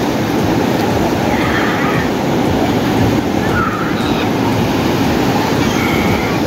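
Rough ocean surf breaking on a sandy beach and around offshore rocks: a loud, steady rushing of waves.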